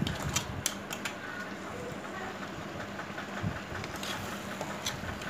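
A metal ladle clinking and scraping against a steel kadai as crab pieces are stirred through thick masala, with a few sharp clinks in the first second or so and more near the end.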